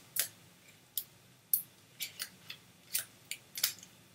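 Brown paper and sticky tape being pressed and folded by hand: about nine short, sharp crinkles.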